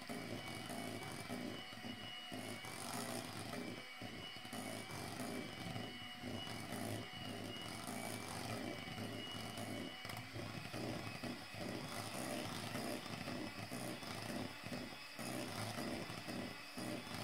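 Electric hand mixer running steadily, its beaters whirring through thick cake batter.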